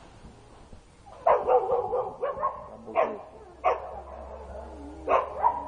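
A dog barking: a quick run of barks about a second in, then single barks roughly every second.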